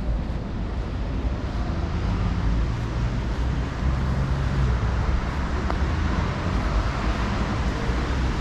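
Steady city street traffic noise, a low rumble of cars on a nearby road, with an engine hum a little stronger from about two to five seconds in.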